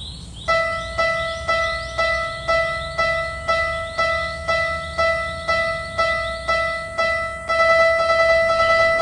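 Japanese level-crossing warning bell ('kan kan') dinging about twice a second, each ding a clear high tone that dies away quickly; about seven and a half seconds in it changes to a fast, continuous ringing.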